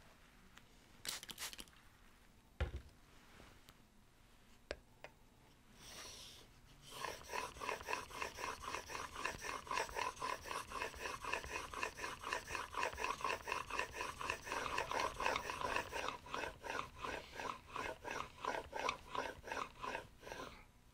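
Block plane blade in a honing guide being pushed back and forth on a wet waterstone: a steady rhythmic scraping of about three strokes a second, starting about seven seconds in. Before it, a short spray of water onto the stone about a second in and a single knock.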